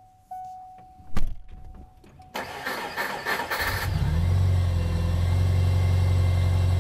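A car's steady warning tone sounds with short breaks, a loud clunk comes about a second in, then the starter cranks for about a second and a half and the engine catches about four seconds in and settles into a steady idle.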